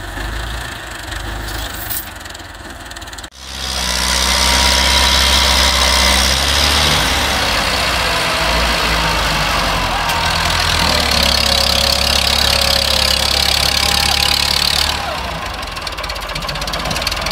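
A diesel tractor engine idling, then a tractor's diesel engine running loud and steady at high revs as it pulls a loaded trolley through soft ploughed soil, easing off near the end.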